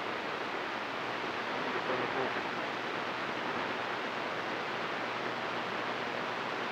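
CB radio receiver on channel 28 putting out steady static hiss between transmissions during skip conditions, with a faint, unreadable voice buried in the noise about two seconds in.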